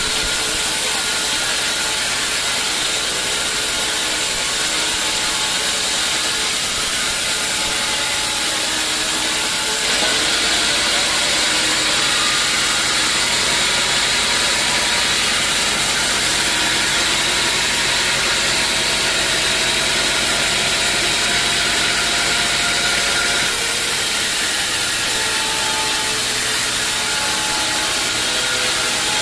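Sawmill machinery running steadily. The sound steps up louder and brighter about ten seconds in and drops back abruptly about six seconds before the end.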